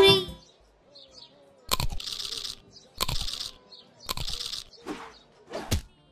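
Music cuts off just after the start, followed by a few short cartoon sound effects: each a sharp click with a brief crunchy hiss, about a second apart.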